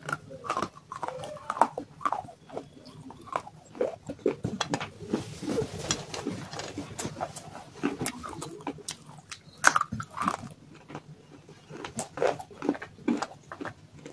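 Dry clay pieces being bitten and chewed, making an irregular run of crunches and gritty crackles. One crack about two-thirds of the way through is louder than the rest.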